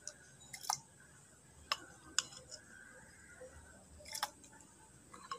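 A handful of sharp, separate clicks and taps of a steel spoon knocking against the clay pot as soaked raw rice is spooned into the heated water.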